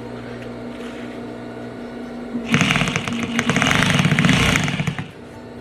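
Electric sewing machine running for about two and a half seconds, starting about halfway in: a motor whir with rapid needle clicks as it stitches a zipper tape into a coat, then it stops. A low steady hum comes before it.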